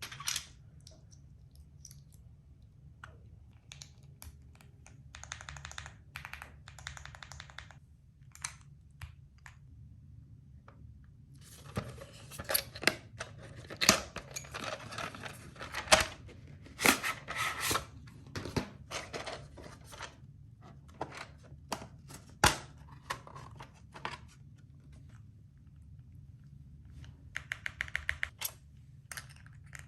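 Keys being typed on a mechanical keyboard: sharp keystroke clicks in irregular clusters, with a dense burst of fast typing in the middle and short rapid runs before and after it.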